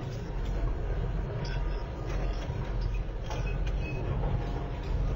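Two Doosan DH225 tracked excavators running under load as they lift an overturned dump truck: a steady low diesel rumble with scattered metal clanks and a few short, high squeals.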